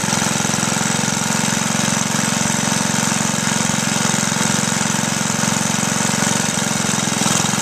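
Old cast-iron Briggs & Stratton single-cylinder four-stroke engine, fitted with a glass head, running steadily with an even, rapid firing beat.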